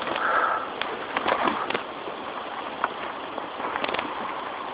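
Steady hiss of rain falling in woodland, broken by scattered sharp ticks.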